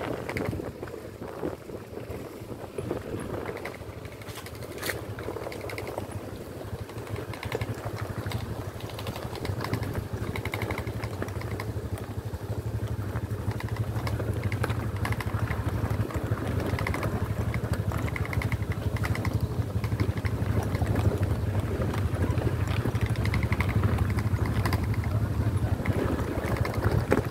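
Motorcycle engines running at low road speed over a rough stone-and-dirt lane, with the bikes rattling on the stones. The engine sound grows louder about a third of the way in.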